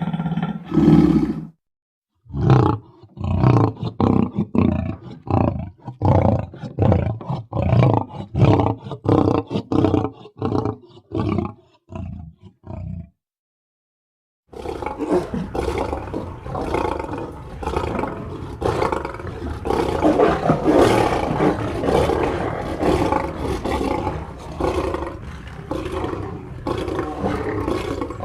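Lion vocalizations used as sound effects. First comes a string of short grunting roars, about two a second, that thins out after roughly ten seconds. After a brief pause, a long unbroken stretch of roaring runs on.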